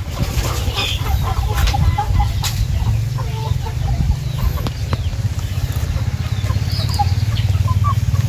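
A flock of native chickens clucking with many short, scattered calls. A steady low rumble runs underneath and is the loudest part.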